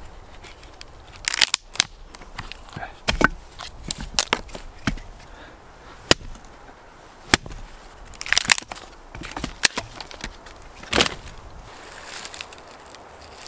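Hatchet chopping into a dry, dead fallen log: a series of sharp wooden chops, about one every second, some harder than others. Near the end, a soft scraping as a knife shaves curls off birch bark.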